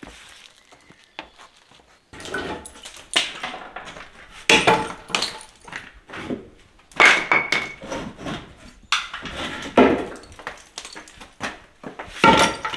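Demolition work on an old doorway by hand, starting about two seconds in: repeated knocks, cracks and clattering as wooden frame pieces and crumbling brick and plaster are pulled loose and fall.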